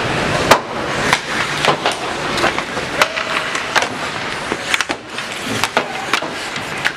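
Ice hockey play heard from the stands: irregular sharp clacks of sticks and puck, loudest about half a second in, and skates scraping the ice, over steady arena background noise.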